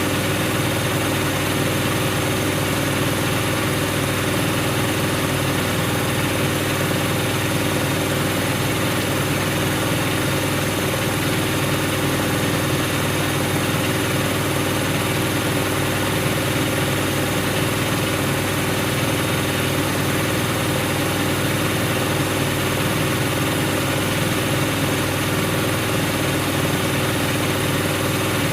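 Siemens Siwamat iQ washing machine running with a steady motor hum and whir, holding an even pitch without pause or change.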